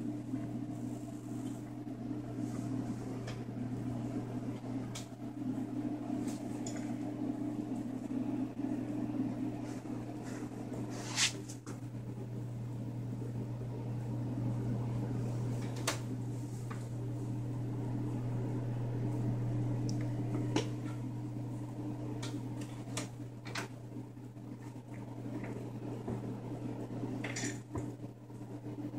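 A small motor hums steadily, with a few light clicks and taps from the needle, syringe and glass vial being handled.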